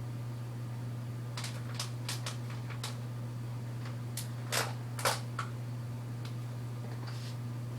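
A scatter of short clicks and knocks, the two loudest about four and a half and five seconds in, over a steady low hum.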